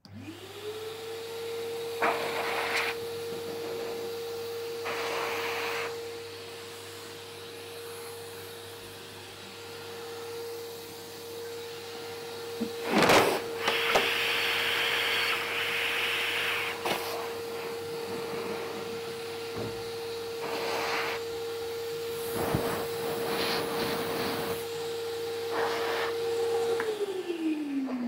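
Industrial vacuum cleaner running in blower mode, its hose fitted to the exhaust outlet. The motor spins up within a second and holds a steady pitch, with several louder bursts of rushing noise, the loudest about halfway through. Near the end it is switched off and winds down with a falling pitch.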